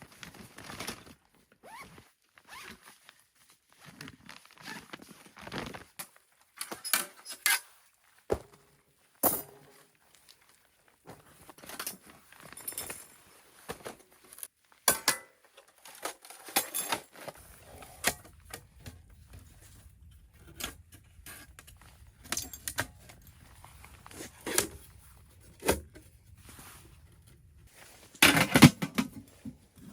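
Camping gear being handled while a tent and stove are set up: scattered clinks, knocks and rustles, with a louder cluster of knocks near the end.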